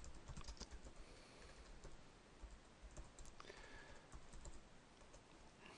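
Faint computer keyboard typing: irregular key clicks as a short command is typed.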